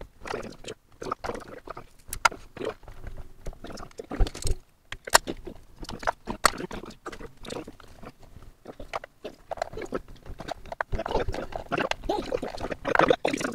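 Small 3D-printer hot-end parts and pliers being handled on a wooden tabletop: irregular clicks and taps of metal on metal and on wood. Some low, wordless vocal sounds near the end.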